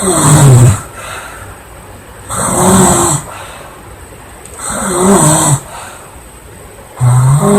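A girl snoring loudly, four snores about two and a half seconds apart, each under a second long with a low, wavering pitch.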